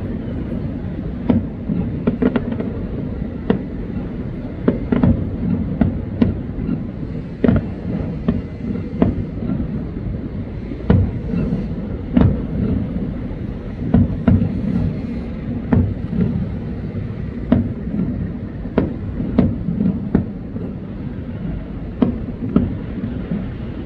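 Aerial fireworks shells bursting in irregular bangs, about one every second or so, over a steady low rumble.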